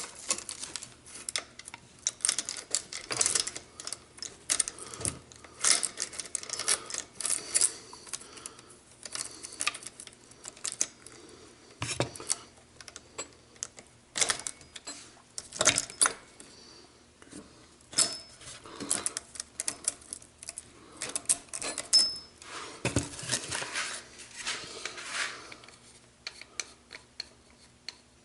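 Saw chain clinking and rattling as it is handled and fitted around a chainsaw's guide bar: irregular metallic clicks and clatters, with a few louder knocks.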